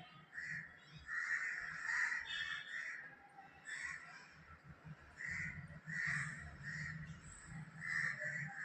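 Pet parrot giving a string of short squawks with brief pauses between them.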